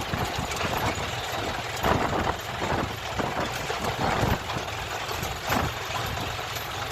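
An engine running steadily, with wind buffeting the microphone in irregular gusts.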